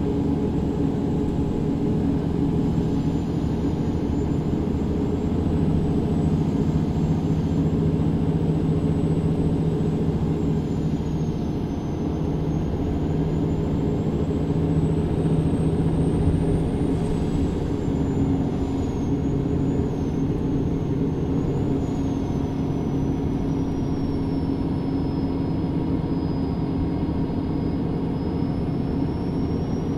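A MAN Lion's City city bus heard from inside the passenger cabin while under way: its diesel engine and drivetrain run steadily, and a thin high whine drifts slowly up and down in pitch.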